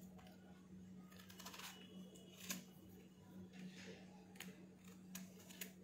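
Faint scraping clicks of a small knife peeling the rind off a pumpkin, a few scattered strokes over a low steady hum.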